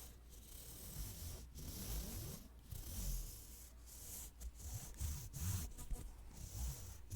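Close, soft rubbing and scraping in a run of uneven strokes broken by short pauses, as an object is handled against the microphone for ASMR.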